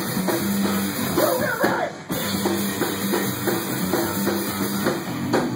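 Rock music: a full drum kit keeps a steady beat with bass drum and snare, under sliding melodic lines. The sound dips briefly about two seconds in.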